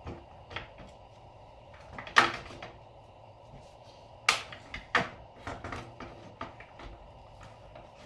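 Metal clunks and clicks as a motorcycle's rear wheel axle is worked by hand into the hub and swingarm. The loudest knock comes about two seconds in, with two more sharp ones around four and five seconds and lighter clicks between.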